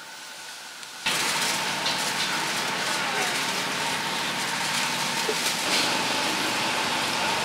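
Beef patties sizzling on a hot flat-top griddle: a loud, steady crackling hiss that starts abruptly about a second in.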